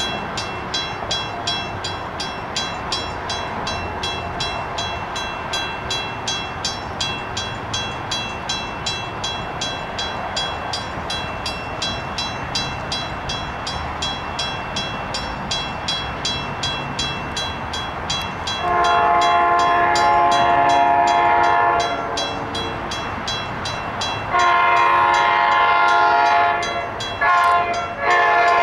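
Grade-crossing bell ringing steadily at about two strikes a second. Over it, the horn of approaching CTrail Hartford Line train 4458, cab car 1713 leading, sounds a long blast, then a second long blast, a short one and the start of a final long one. This is the long-long-short-long signal for a grade crossing.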